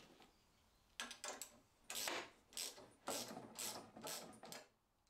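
Socket ratchet clicking in a run of short strokes, about eight, as a nylon lock nut and washer are tightened onto a steel threaded rod. The strokes start about a second in and stop shortly before the end.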